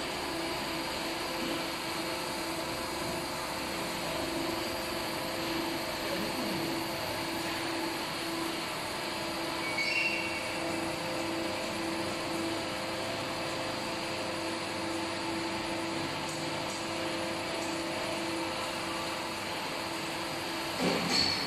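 Cylindrical grinding machine running on test: a steady motor and spindle hum with a gently pulsing tone as the table traverses. A brief squeal about ten seconds in, and a short falling squeal with a knock near the end.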